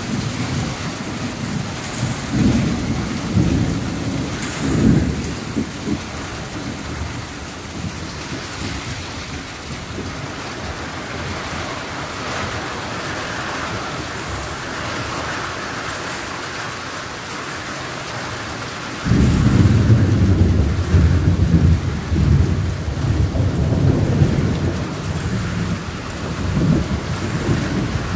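Heavy rain pouring steadily in a thunderstorm, with thunder rumbling low. A few rolls come in the first seconds, then a louder, longer rumble starts suddenly about two-thirds of the way in.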